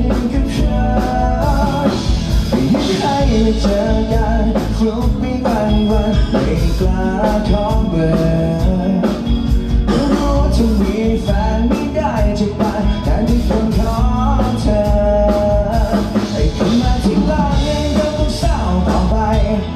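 Live band playing a song at full volume, with a steady drum beat and bass under pitched melody lines.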